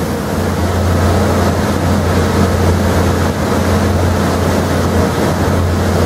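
Takumi V22A vertical machining center with its spindle running at about 6,500 RPM: a steady hum under an even rushing noise, with no change in speed.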